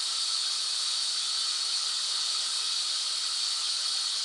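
Steady white-noise hiss, bright and even, with no change in level or texture.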